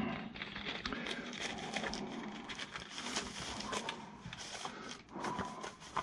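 Thin clear plastic wrapper crinkling and crackling in the hands as a booklet is slid out of it, a steady run of fine crackles.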